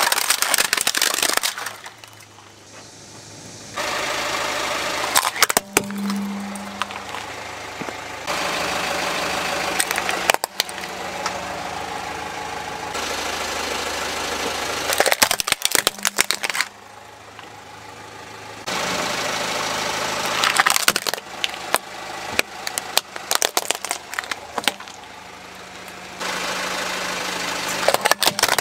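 Hard plastic toy vehicles cracking and snapping under a car tyre in several separate bursts, with a car engine running at low speed between them.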